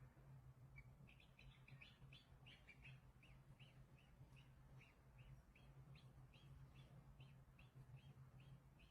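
Faint bird chirping: short high chirps, a quick bunch about a second in, then regular at about three a second, over a low steady hum.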